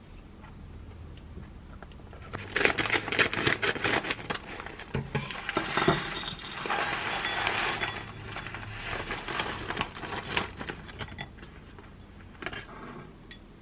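Plastic food pouch crinkling as it is handled and torn open, then cauliflower fried rice pouring out of it into a ceramic bowl with a dense rattle of grains, and more crinkling as the pouch is shaken empty.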